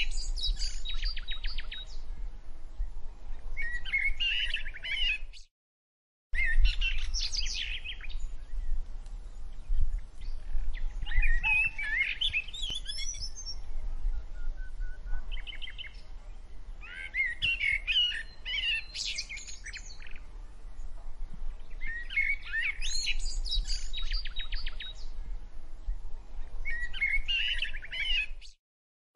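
Birds chirping and singing in short repeated bursts every few seconds, over a low steady rumble. The sound cuts out briefly about five to six seconds in and again just before the end.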